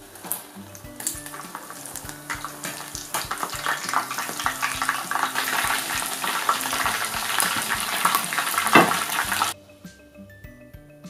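Battered pork pieces frying a second time in hot oil in a saucepan: dense sizzling and crackling that builds up as the pieces go in and keeps going hard. There is a single knock near the end, and the frying cuts off suddenly about nine and a half seconds in, leaving soft background music.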